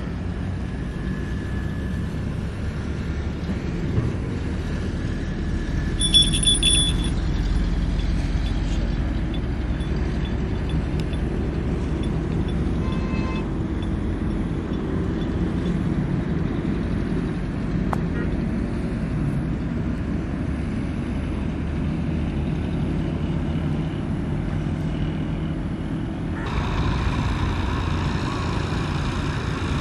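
An engine running steadily with a low drone. A brief high-pitched tone sounds about six seconds in, and the sound grows fuller near the end.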